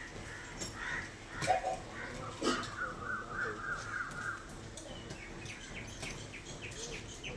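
Birds calling, with a run of rapid repeated notes about two seconds in, and scattered sharp clicks.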